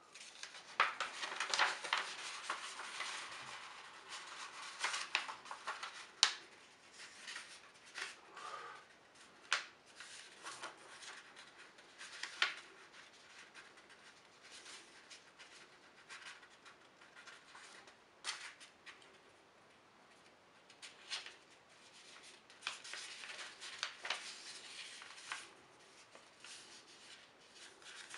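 A sheet of paper being handled and folded on a hard tabletop: irregular rustling and crinkling, with sharp crackles here and there as folds are pressed down.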